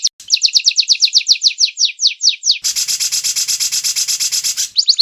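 White-rumped shama song from an edited training recording: a fast trill of high, downward-sweeping notes that slows toward the end. About halfway through, a harsh rasping rattle cuts in, and the fast swept notes return near the end.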